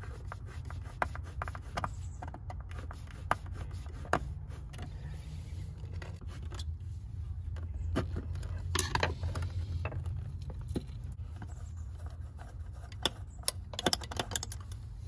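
Hand work on electrical wiring: scattered clicks and taps of wires, tools and box parts being handled, with a louder scrape about nine seconds in, over a steady low hum.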